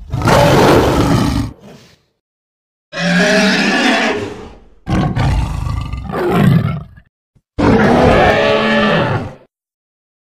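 Four growling dinosaur roars, performed as Fang's voice, each lasting a second or two and separated by silence.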